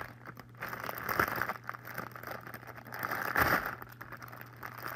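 Clear plastic packaging crinkling and crackling as it is pulled and torn open by hand. It comes in irregular bursts, loudest about a second in and again around three and a half seconds in.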